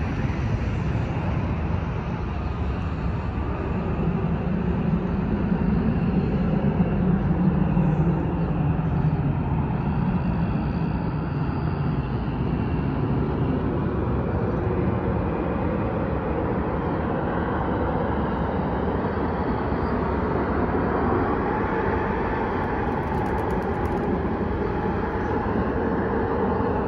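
Jet airliner landing: a steady low engine rumble that swells to its loudest about seven seconds in, then carries on more evenly as the aircraft rolls out on the runway.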